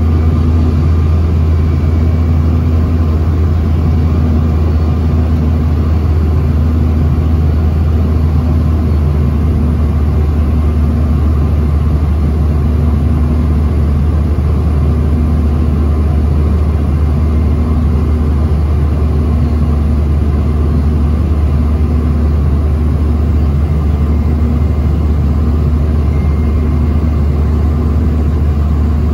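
Steady, loud, low drone of cabin noise inside a Bombardier CRJ-900 jet in flight: its rear-mounted turbofan engines and the airflow over the fuselage, unchanging throughout.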